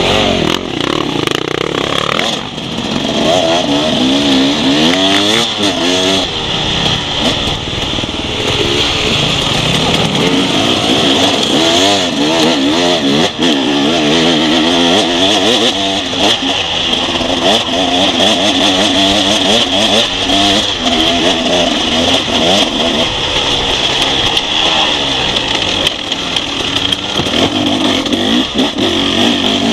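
Off-road enduro motorcycle engine ridden hard over rough ground, its revs rising and falling constantly with the throttle, over a steady hiss, heard close from a camera on the bike.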